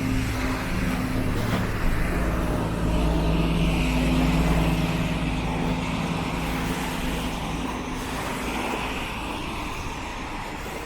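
A motor vehicle's engine running close by, getting louder to about four seconds in, then fading away.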